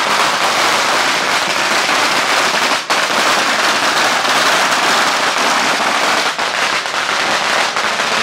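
A long string of Chinese firecrackers going off in a continuous rapid crackle of bangs, with a brief dip about three seconds in.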